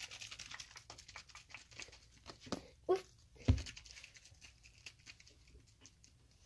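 Hands rubbing and brushing against a phone close to its microphone, making rapid crackling clicks, with a few louder knocks against it in the middle, the loudest about three and a half seconds in.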